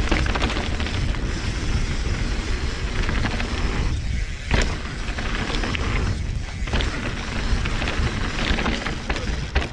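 Wind buffeting an action camera's microphone over the sound of mountain-bike tyres rolling down a dirt trail, with a couple of sharp knocks from the bike over bumps, about halfway and near the end.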